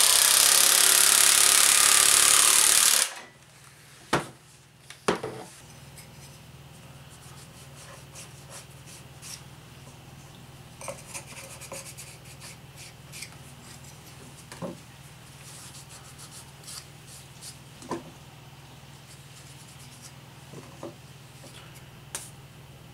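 DeWalt reciprocating saw running as it cuts through wood, cutting off abruptly about three seconds in. Two sharp knocks follow, then quiet rubbing and scratching with scattered small clicks and taps.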